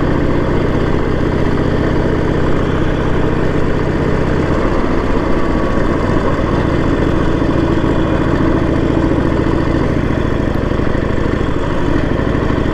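Harley-Davidson Sportster 1200's air-cooled V-twin engine running steadily while riding. Its note drops a little about four and a half seconds in and shifts again near ten seconds, as the engine speed changes.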